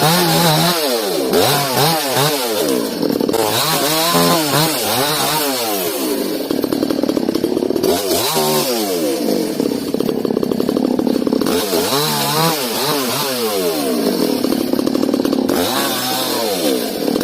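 Yasuka chainsaw with a 24-inch bar, its engine revving up and falling back again and again as it cuts wood, holding a steadier pitch for a couple of seconds at a time around the middle.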